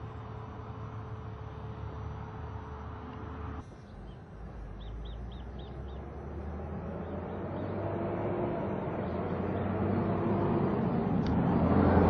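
Steady low rumble of a motor vehicle that changes abruptly a few seconds in, then grows steadily louder towards the end; a bird chirps about four times in quick succession near the middle.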